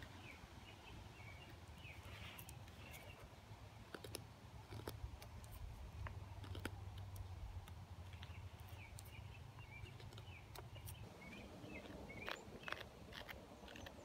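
Helle Sigmund knife cutting into a block of dry trembling aspen, a scatter of faint clicks and scrapes as the blade takes off small chips, more of them near the end. Birds chirp faintly in the background.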